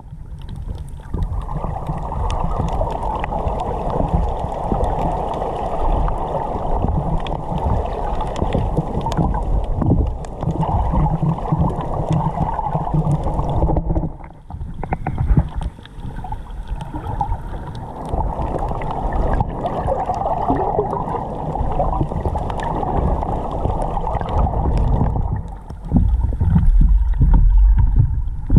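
Muffled rushing and sloshing of water around a camera in a waterproof housing held just under the surface. It drops out briefly about halfway through, and the low sloshing grows louder near the end.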